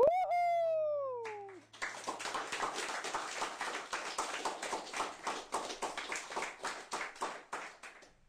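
A pitched cry that jumps up sharply, then glides slowly down for about a second and a half, followed by a long run of rapid, irregular clicking that stops suddenly near the end.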